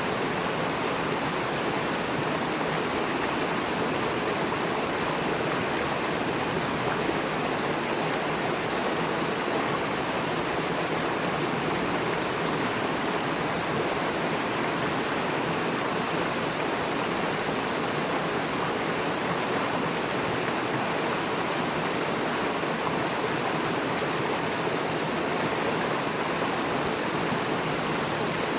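Fast river water rushing and splashing over rocks, a steady unbroken rush.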